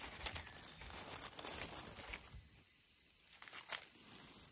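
Steady high-pitched chorus of insects. There is rustling in the leaf litter for the first two seconds or so, and a single sharp click a little before the end.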